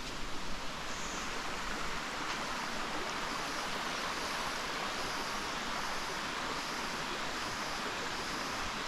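Waterfall and its stream rushing steadily, an even hiss of falling and running water.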